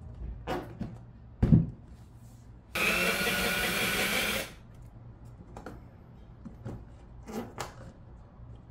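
Cordless drill running in one steady burst of about two seconds against the plastic hitch fascia panel on the bumper cover. Before it comes a sharp knock, the loudest sound, and near the end a few light knocks of the plastic panel being handled.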